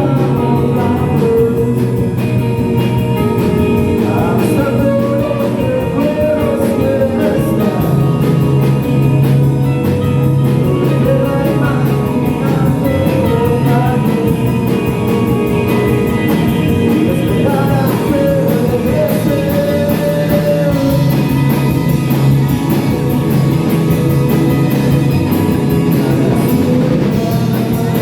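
Live rock band music: a sung melody over guitar and drums, with a fast, steady beat.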